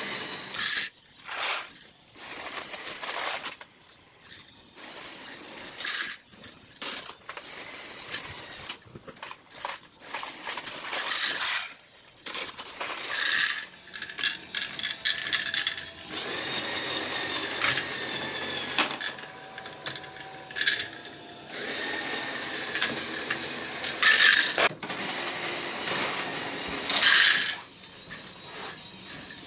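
LEGO Technic machine running on its electric motors: a motor whirs steadily in several stretches lasting a few seconds each. In between, plastic gears and parts click and clatter, and small plastic balls rattle as the containers are tipped and moved.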